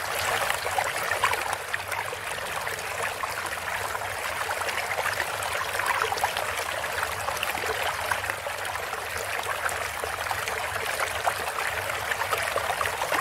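Steady rushing, splashing water with many small crackles, over a constant low hum.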